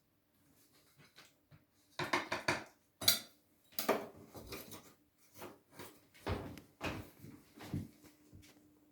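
Metal hand tools clinking and scraping against a chrome shower valve front plate that is stuck on with silicone sealant: a run of short knocks and scrapes that starts about two seconds in.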